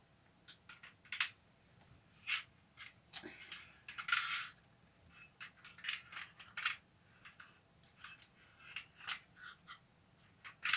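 Curtain panel being handled and threaded onto a curtain rod: irregular light clicks and taps with short bursts of fabric rustling, the longest rustle about four seconds in.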